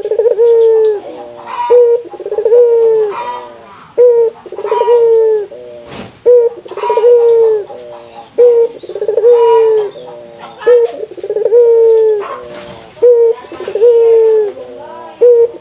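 Puter dove cooing repeatedly and loudly: each call is a short note followed by a longer drawn-out coo, repeated about every one and a half seconds.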